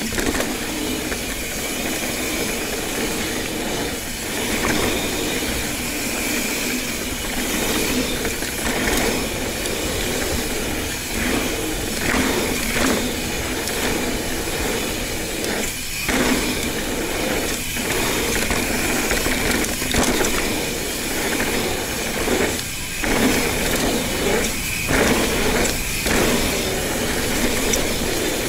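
Ibis Ripley 29er mountain bike being ridden along a trail: a steady rush of tyre and drivetrain noise with rattling from the bike.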